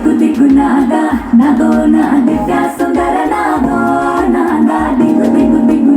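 A song with a singing voice playing through the OnePlus 40-inch TV's built-in 20-watt speakers.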